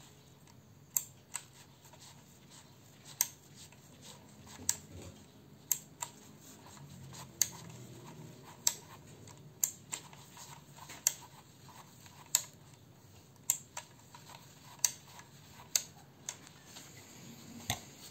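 Sharp mechanical clicks from the knurled side knob of a Ricohflex twin-lens reflex camera being turned by hand, about one click a second, some in quick pairs.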